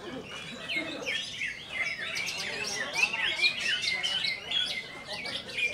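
Green leafbird (cucak ijo) singing a rapid, varied stream of chirps and whistles, busier from about two seconds in.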